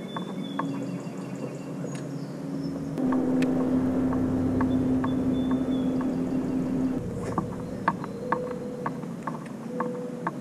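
Bow-mounted electric trolling motor humming steadily. It runs louder for about four seconds in the middle, then drops back, with a series of light ticks over the second half.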